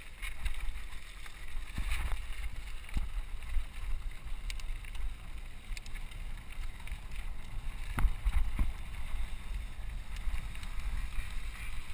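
Wind buffeting a helmet camera's microphone as a mountain bike rolls down a dirt and gravel track. A few sharp knocks come from the bike going over bumps, the loudest about eight seconds in.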